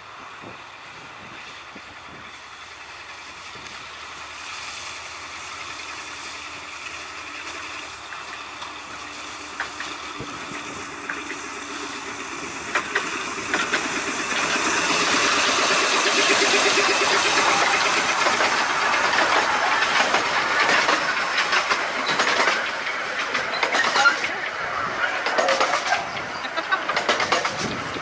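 A 15-inch gauge miniature railway train approaching and passing close by, growing steadily louder for about fifteen seconds. The carriages then rattle and click as they go past.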